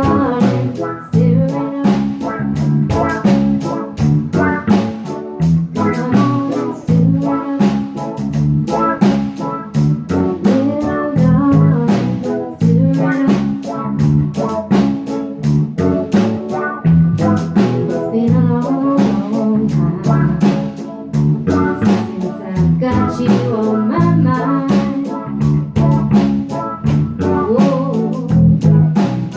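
A recorded song with guitar, bass and a drum kit keeping a steady beat, and a voice singing over them.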